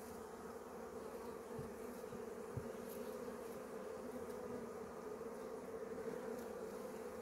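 Honey bees humming steadily in an opened hive, the low, even buzz of many bees, with two faint knocks about one and a half and two and a half seconds in.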